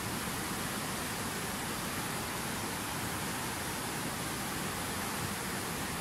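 Fast mountain river rapids rushing over rocks: a steady, even hiss of whitewater with no breaks or changes.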